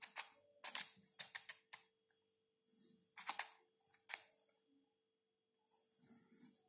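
Plastic pieces of a Nautilus shape-shifting puzzle cube clicking and rattling as its layers are twisted by hand, in several quick bursts over the first four seconds, then softer handling.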